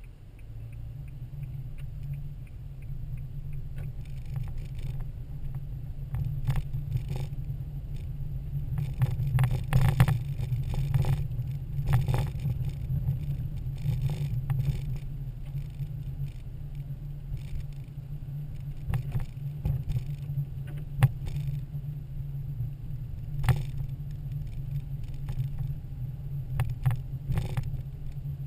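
Car driving on winter roads, heard from inside the cabin: a steady low engine and tyre rumble, with scattered sharp ticks and rattles coming and going throughout.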